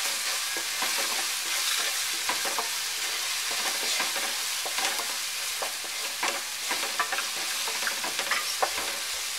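Chopped onion and tomato masala sizzling in oil in a nonstick frying pan as powdered spices are stirred in with a wooden spatula. The steady sizzle carries frequent irregular light scrapes and clicks of the spatula against the pan.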